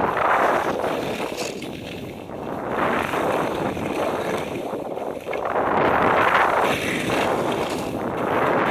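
Telemark skis scraping and sliding over thin snow cover through a series of turns, a rushing scrape that swells with each turn about every two to three seconds. Wind buffets the microphone throughout.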